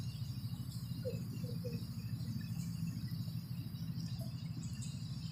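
Steady low background hum with continuous high-pitched insect chirring over it, and a few faint short chirps about a second in.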